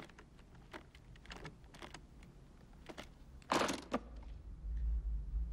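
Small metal clicks as the number wheels of a briefcase combination lock are turned, then a louder sharp snap of the briefcase latches opening about three and a half seconds in. A steady low hum starts near the end.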